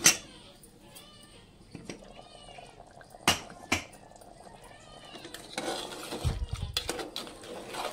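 A pet cat meowing, a few short high meows. Sharp clicks come at the start and about three seconds in, and a low bump follows near the end.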